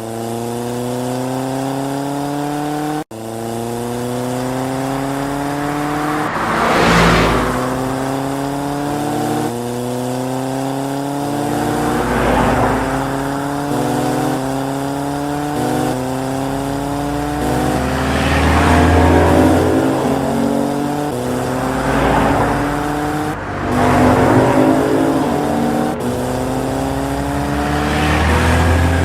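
Race-car sound effects: an engine-like tone climbing in repeated steps, as if shifting up through gears, with cars whooshing past about six times over a low rumble.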